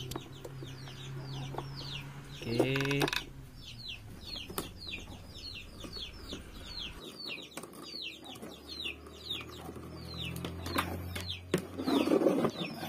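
Chickens calling: a steady run of short, high, falling peeps, about three a second, with a lower clucking call about three seconds in. A few sharp clicks and a rustle near the end sit over it.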